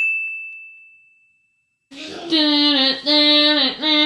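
A single bright ding that rings out and fades over about two seconds, then a second of silence, then a pitched voice or instrument in long held notes with short breaks between them.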